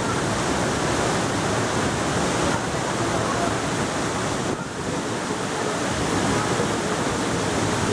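Steady rushing roar of falling water from a waterfall, dipping briefly about halfway through.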